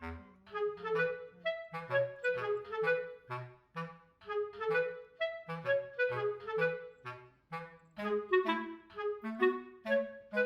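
Background music: a light, bouncy tune of short, separate notes over a bass line.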